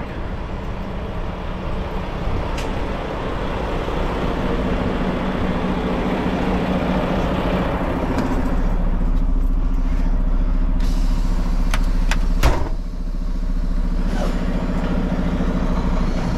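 Semi-truck's diesel engine running and pulling the rig slowly forward to free a stuck tandem-slide locking pin so it drops into place. The engine grows louder over the first several seconds. There are a few sharp clicks and one loud clunk about twelve seconds in.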